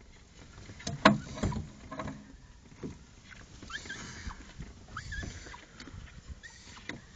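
Knocks and thuds aboard a small fishing boat, the loudest a sharp knock about a second in, with short high squeaks recurring every second or so near the end.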